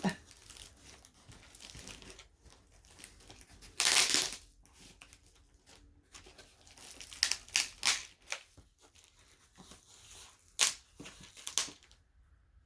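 A thick cardboard shipping box being opened by hand: tearing and crinkling of packing material, with one loud rip about four seconds in and a string of sharp crackles later.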